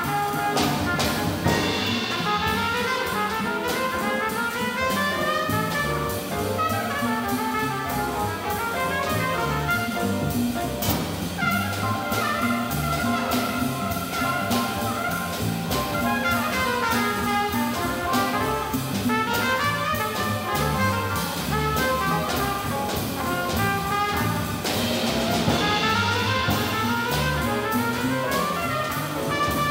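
Live jazz quartet: a trumpet plays fast rising and falling melodic runs over grand piano, upright bass and a drum kit with cymbals.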